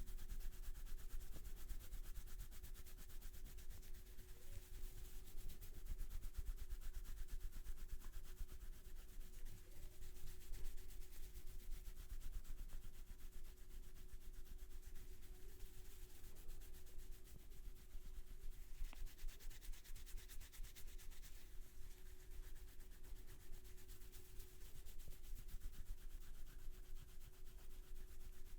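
Hands rubbing and scratching through hair on the scalp during a head massage: a continuous scratchy rustle of quick strokes.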